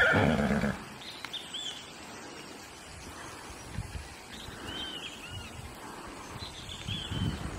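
A horse's whinny trails off in the first second. Then small birds chirp in short arched notes, a few at a time, over quiet rural background.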